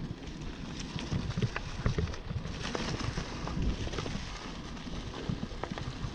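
Mountain bike rolling over a dirt trail strewn with dry leaves: the tyres crackle over the leaves and twigs, with irregular clicks and rattles from the bike, over a steady low rumble.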